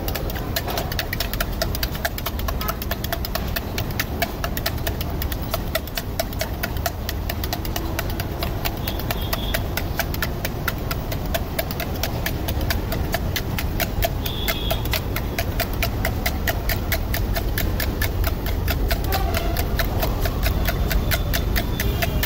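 Eggs being beaten by hand in a small steel bowl, the utensil clicking against the metal in a rapid, even rhythm. A steady low rumble runs underneath.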